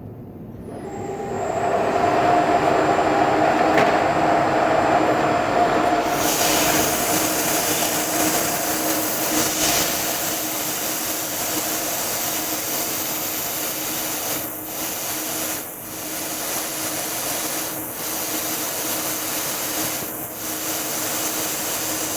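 CNC knee mill spindle running up and a half-inch four-flute end mill cutting steel at about 3,000 RPM, a steady machining drone with a loud hiss joining about six seconds in. The hiss drops out briefly four times near the end.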